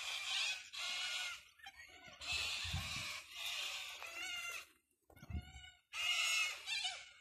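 Birds calling over and over, each call lasting about half a second to a second, with a short pause about five seconds in.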